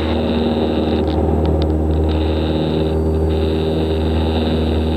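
A Cessna 172 Skyhawk's piston engine and propeller running steadily at takeoff power during the climb just after liftoff, heard inside the cabin as a loud, even drone.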